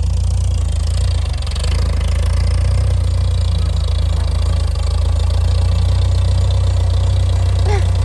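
International Harvester industrial tractor engine running steadily and loud as the tractor drives with its front-loader bucket raised.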